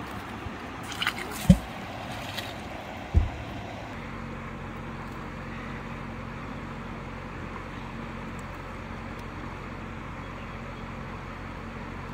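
A magnet-fishing magnet on its rope thrown into a river. There is a short splash about a second in and two dull thumps, the first the loudest, followed by steady water sound with a faint low hum.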